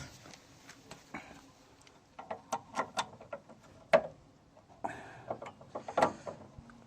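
Metal clicks, knocks and scrapes as the rusted, seized cutting cylinder of a Suffolk Punch 43 mower is forced by hand; the blades are jammed solid and do not turn. Clusters of clicks, with sharper knocks about four and six seconds in.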